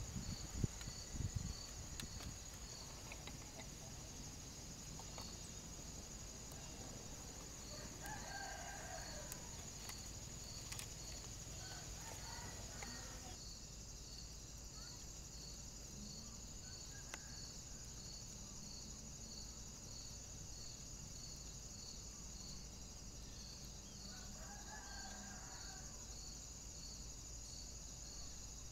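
Faint rooster crowing a few times, over a steady high insect drone that pulses about twice a second.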